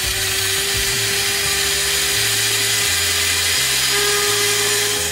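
Electric blender running steadily at speed, blending a smoothie of banana, yogurt and almond-coconut milk: a loud, even motor whine.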